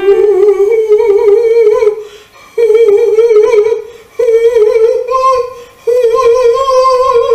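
A woman sings four sustained vowel notes in a breath-support exercise, each note a little higher than the last, with vibrato. The teacher judges that she is pushing them with too much effort from the wrong muscles.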